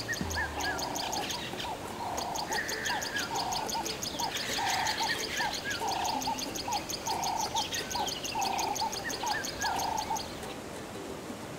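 Bird calls in a nature soundscape: a call repeats about once a second, with short chirps between, over a fast, steady high ticking that stops about ten seconds in.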